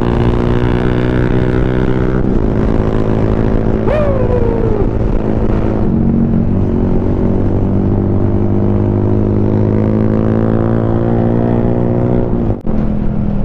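Small motorcycle engine running steadily under way, its note changing pitch about two seconds in and again about six seconds in. A brief falling tone is heard about four seconds in.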